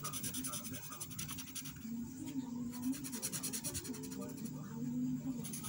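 A felt-tip marker scratching and rubbing on paper as a drawing is coloured in, with a low voice-like sound in the background.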